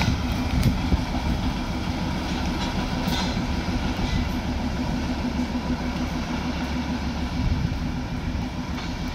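Steady low engine rumble with a constant hum and a few faint clicks, easing slightly toward the end.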